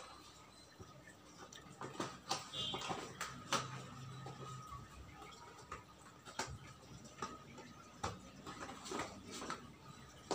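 Hands handling a cardboard fireworks box: scattered light taps, knocks and rubs of cardboard against cardboard.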